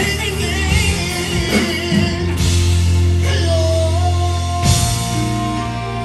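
A male singer belting a song into a handheld microphone over a live band, amplified through the venue's sound system; he holds one long, wavering note in the middle.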